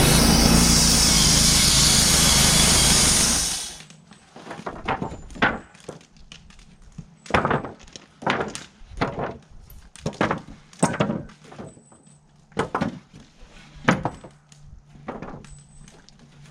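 Wood-Mizer LT35 Hydraulic portable sawmill running loud, then dropping away abruptly about four seconds in. Then a string of about a dozen sharp wooden knocks and clunks, spaced roughly half a second to a second apart, as sawn lumber is handled.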